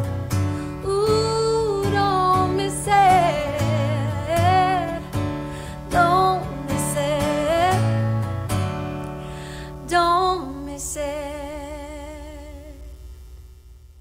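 A woman singing with vibrato to a strummed acoustic guitar. The song closes on a long held note that fades away with the last guitar chord near the end.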